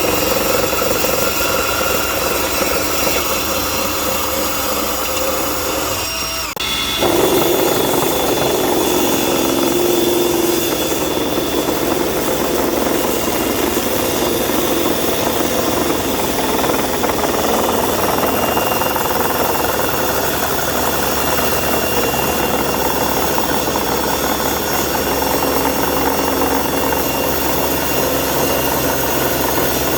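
Power tools running steadily: a table saw and a cordless drill working together as a makeshift lathe, the drill spinning a wood blank against the saw blade. There is a brief dip about six seconds in, after which the running is a little louder.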